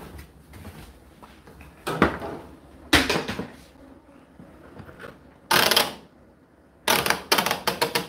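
A few separate knocks and a short clatter, then near the end a quick run of clicks as the tumble dryer's programme timer dial is turned.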